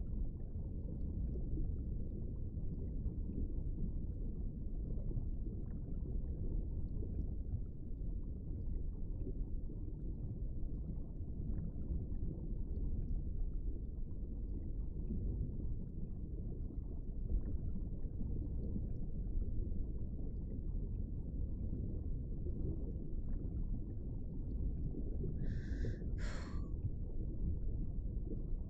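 Steady low underwater-style ambient rumble, a sound-effect bed. Near the end come two short, higher-pitched sounds in quick succession.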